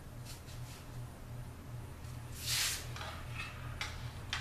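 A sword sliding back into its scabbard: a short hiss about halfway through, then a couple of light clicks as it is seated. A steady low hum runs underneath.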